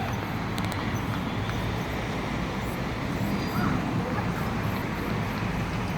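Steady road traffic noise: an even low rumble of vehicles with no single engine standing out, and a couple of faint clicks a little over half a second in.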